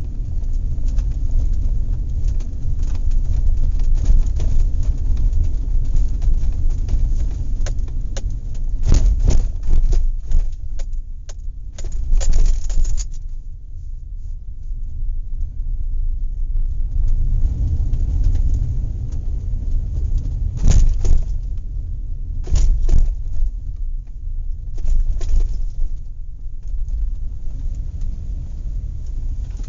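Horse farm field recording: a steady low rumble with scattered bursts of clattering and knocking, a run of them about a third of the way in and a few more about two-thirds through.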